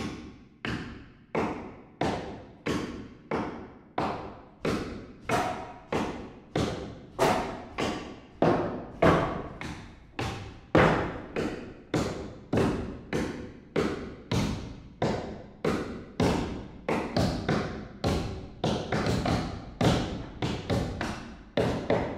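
Hammer nailing into a wooden roof frame, a steady run of about two blows a second, each ringing out briefly.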